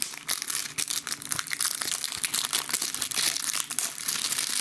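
Plastic shrink-wrap crinkling and crackling as it is torn and peeled off a DVD case, a dense run of small crackles throughout.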